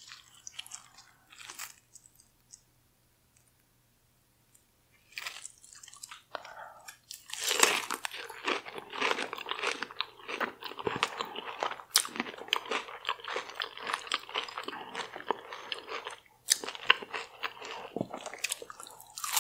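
Close-miked chewing and crunching of deep-fried, Doritos-crusted seafood. A few soft mouth sounds come at first and then a short lull, and dense crunchy chewing starts about a third of the way in and carries on.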